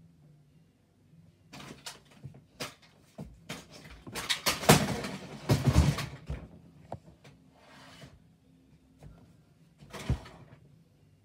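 Irregular knocks, bumps and rustling from someone moving close to the phone. They are thickest and loudest in the middle, with one sharp knock near the end.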